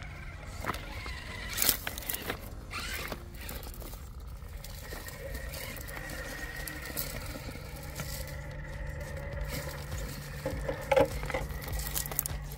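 Two electric RC rock crawlers, a Vanquish GroundFox build and a straight-axle Capra, grinding over boulders: a steady whine from the motors and drivetrains under scraping and clicking of tyres and chassis on the rock. Sharp knocks stand out about two seconds in and again near the end.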